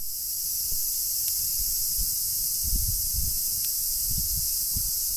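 Steady high-pitched chorus of insects, with irregular low rumbles and a couple of faint ticks.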